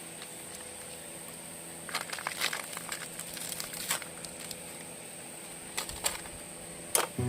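Scattered light clicks and crinkling rustles, clustered about two seconds in and again briefly near six and seven seconds, over a steady faint hum with a thin high whine.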